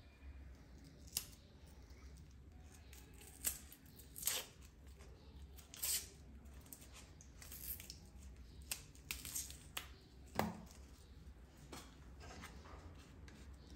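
Dry, papery onion skin being peeled off by hand, faint short crackling tears every second or so. About ten seconds in there is one duller knock as a knife cuts the onion in half onto a wooden chopping board.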